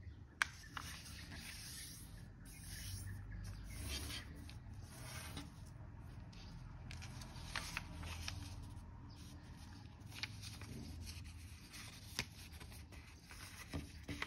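A sheet of origami paper being folded by hand: rubbing and rustling as fingers press and run along the folds, with a sharp crackle of the paper now and then.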